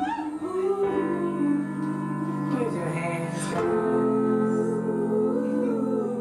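Music from a DJ's backing track: slow, held chords with a melody line that glides between notes.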